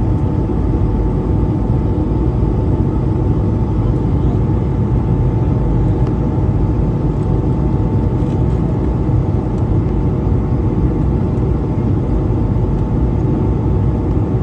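Air France Airbus A220-300 jet engines running in a steady, loud rumble with a faint steady whine above it.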